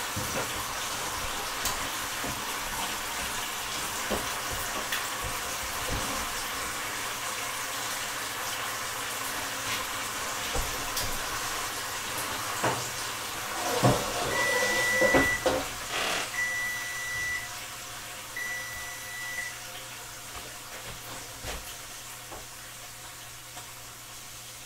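Three long electronic beeps at one steady pitch, each about a second, from a kitchen appliance, over a steady hiss that dies down after the beeps. A few knocks come just before and between the beeps.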